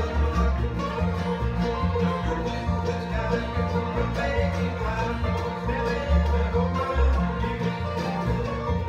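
Bluegrass band playing at a fast tempo: banjo rolls, mandolin, acoustic guitar strumming and a plucked upright bass line.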